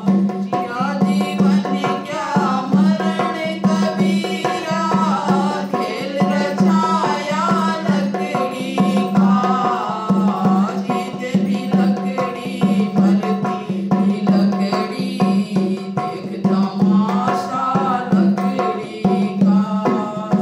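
A woman singing a bhajan, a devotional song, while beating a dholak. The drum's deep bass head pulses in a steady rhythm under her voice.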